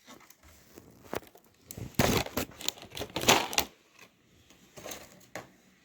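Plastic miniature sprues being handled and moved about: a few sharp plastic clicks and clacks, with two longer bursts of rustling and rattling about two and three seconds in.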